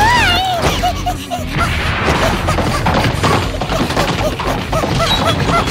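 Cartoon voice letting out a high squeal with a wavering, falling pitch, followed by quick repeated short cries, about three a second, over busy comic crashes and background music.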